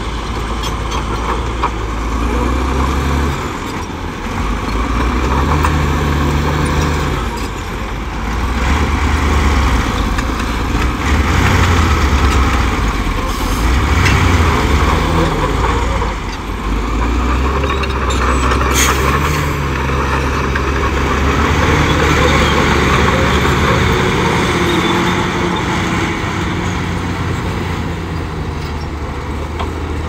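Heavy earthmoving machinery's diesel engine running under load, its revs rising and falling every few seconds, with a sharp clank about two-thirds of the way through.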